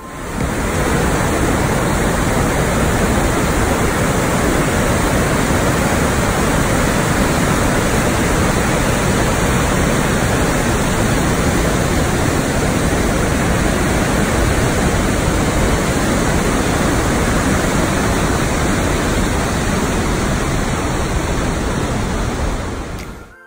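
Steady, loud rushing noise with no rhythm or pitch, fading in at the start and out near the end.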